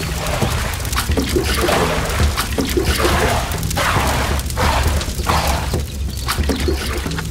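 Water poured and splashed from a small plastic bucket in repeated gushes, over steady background music.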